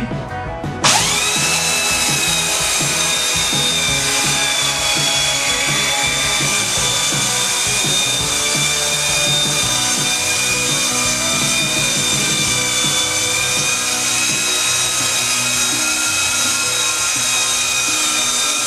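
A 1-horsepower belt sander with a coarse 40-grit belt switches on about a second in and spins up with a brief rising whine. It then runs steadily at full speed, sanding the rough top layer off an ash board.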